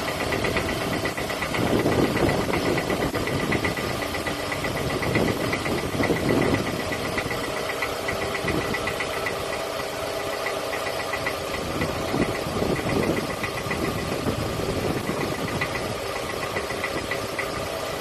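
A 2007 Toyota Camry's 2.4-litre four-cylinder engine running with a fast, even metallic knocking, which the owner takes for piston slap. The engine sound swells briefly a few times.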